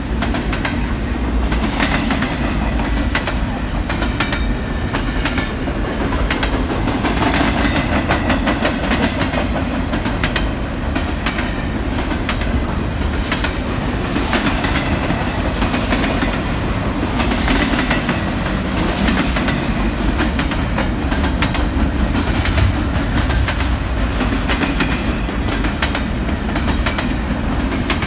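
A train rolling steadily past, a continuous rumble with the wheels clicking over the rail joints.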